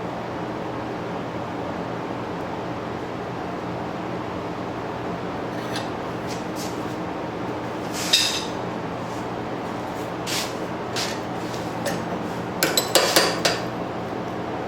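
Steady hum of forge-shop equipment, with scattered metallic clinks of steel bar stock and a twisting wrench being handled: one louder clink about eight seconds in and a quick run of clinks near the end.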